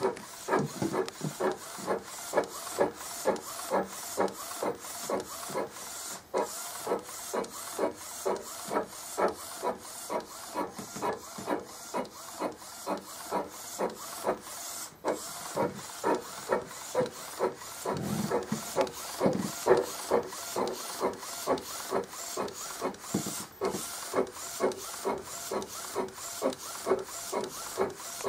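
DIY UV flatbed printer built from an Epson R1400, printing. Its mechanism runs in a fast, even rhythm of pulses, about three a second.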